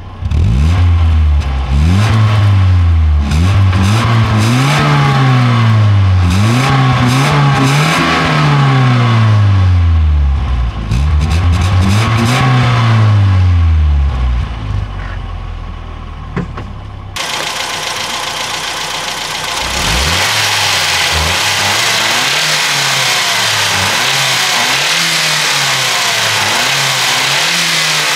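Ford Fiesta Mk3 1.1-litre four-cylinder engine revved repeatedly from idle on its old exhaust, about six rises and falls in pitch. After a cut, more short revs come over a steady hiss. This is the exhaust the owner says sounds like nothing, a sewing machine at idle.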